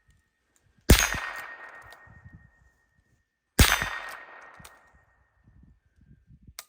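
Two shots from a Marlin 39A lever-action .22 rimfire rifle, about three seconds apart, each followed by a steady metallic ring from a struck steel target. Small clicks between and after the shots.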